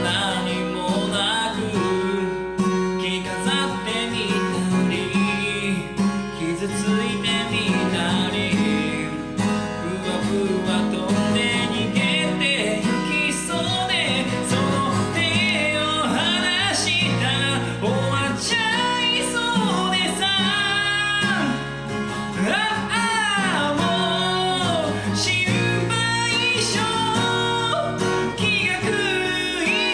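Solo singer accompanying themselves on acoustic guitar, singing a Japanese rock ballad over steady strummed chords.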